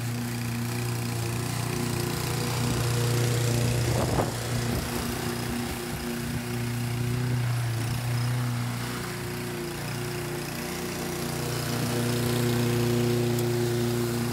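Gas walk-behind lawn mower (Toro Personal Pace 22) running steadily while cutting grass, its drone swelling and easing as it is pushed along.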